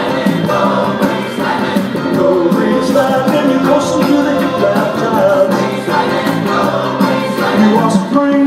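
Music with singing and a steady beat.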